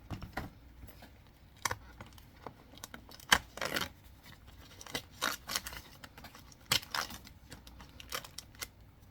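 A small advent-calendar box and its packaging being opened and handled by hand: scattered clicks, crinkles and rustles, with a short tearing rustle about three and a half seconds in.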